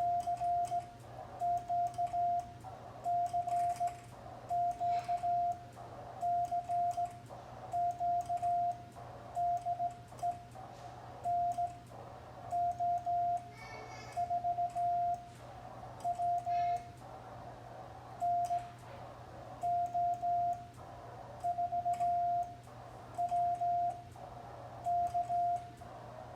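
A transceiver's Morse code sidetone, one steady mid-pitched beep, keyed in quick groups of dots and dashes from a semi-automatic key as an amateur radio CQ call goes out. Faint key clicks and a low steady hum sit underneath.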